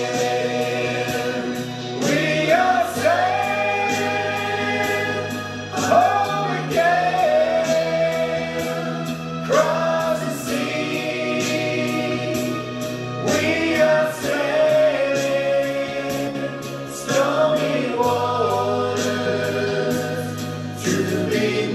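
Music: a choir singing slow, held chords over a bass line that moves in slow steps.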